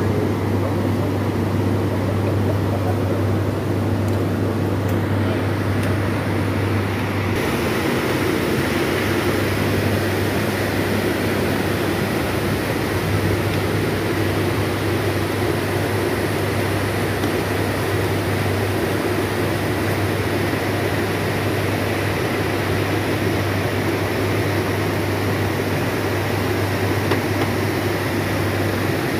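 A steady machine drone with a constant low hum under a broad rushing noise; the rushing grows fuller about seven seconds in.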